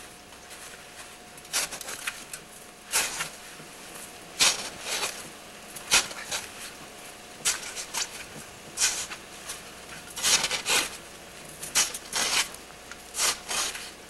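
A metal printer card cage cover used as a snow shovel, scraping and crunching into snow in a string of short strokes at uneven intervals, about one a second.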